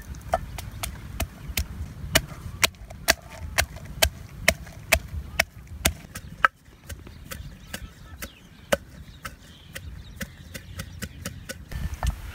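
Wooden pestle pounding red chilies and garlic in a clay mortar: a steady run of sharp knocks, about two a second, stopping near the end.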